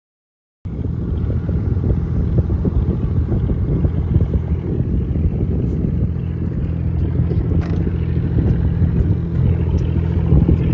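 Fishing boat's engine running with a steady low hum. It starts abruptly under a second in, after dead silence.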